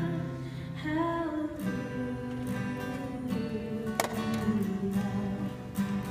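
Live acoustic guitar strumming chords, accompanying a woman singing; her sung phrase ends about a second and a half in and the guitar carries on alone.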